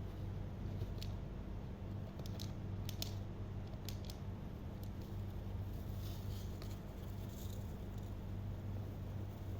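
Scattered light clicks and scratches from a baby parrot's beak and claws over a steady low electrical hum.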